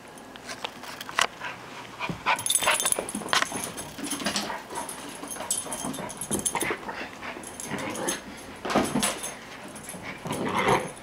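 A six-month-old puppy at play with a toy: short dog vocal sounds among irregular clicks and scuffles, loudest in bursts a few seconds in and near the end.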